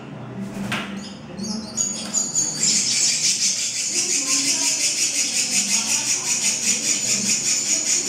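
Common myna nestlings begging to be fed: loud, high, rapidly pulsing calls, about five a second. They start as scattered short calls and build to a continuous chorus about three seconds in.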